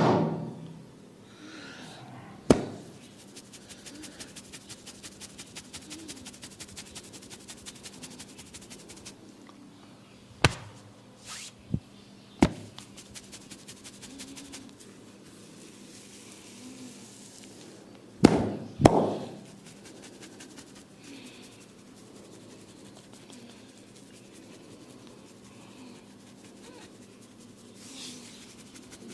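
Hand strikes of a head massage: a handful of sharp, loud slaps, two of them close together, and between them a run of light quick taps at about three a second.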